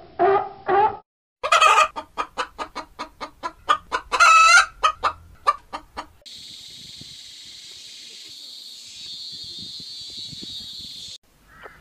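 Short repeated calls from a sea lion for about the first second. Then chickens clucking fast, with two longer, louder calls among the clucks. Then a steady high hiss for the last five seconds.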